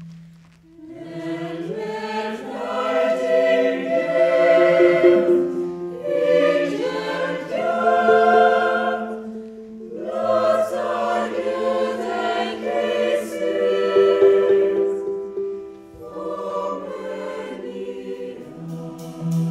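Mixed choir singing in several parts, in phrases that swell and fade and start again a few times.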